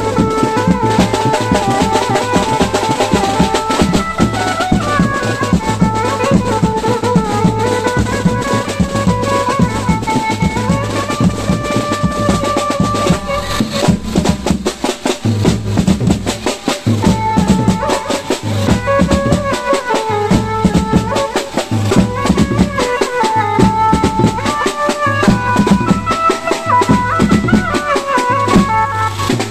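Maharashtrian banjo-party band playing live: a keyboard melody moving over dense, fast drumming with a strong bass underneath.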